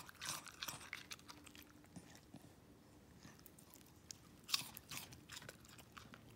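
Welsh terrier crunching and chewing a piece of cucumber: a run of crisp crunches in the first second or so, quieter chewing after, and another loud crunch about four and a half seconds in.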